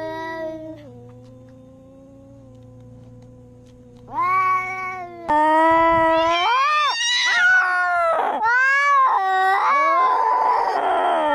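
Domestic cats yowling: a drawn-out call that breaks off about a second in, a quieter steady low tone, then from about four seconds a run of loud, long yowls that rise and fall in pitch, turning rough and hoarse near the end.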